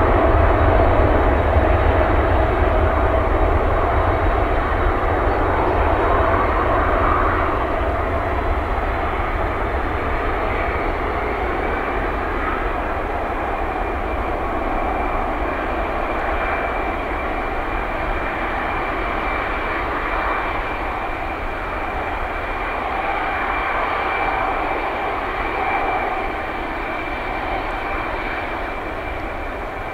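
Airbus A340-200's four CFM56-5C turbofan engines at takeoff power during the takeoff roll: a steady jet roar with a high whine over a deep rumble. It fades gradually as the aircraft moves away down the runway.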